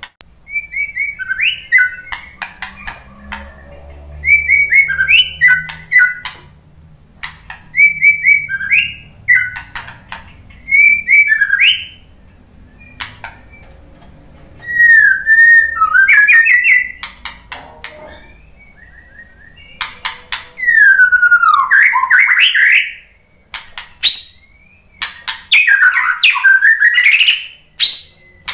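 White-rumped shama (murai batu) singing. For the first twelve seconds it gives short whistled phrases about every two seconds, with sharp clicking notes between them. After that it sings longer, fuller phrases of gliding whistles.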